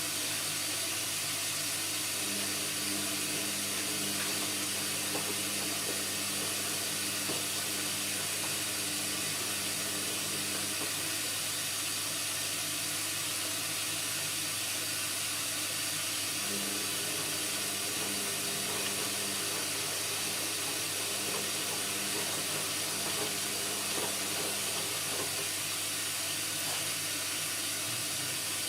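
Indesit washing machine running mid-cycle: a steady rush of water with a constant low hum, and faint tones that come and go.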